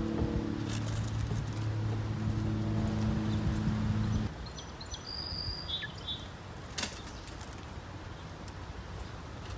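A steady low engine hum, like a motor vehicle running nearby, cuts off abruptly about four seconds in. Then quieter outdoor background follows, with a brief high chirp and a single sharp click.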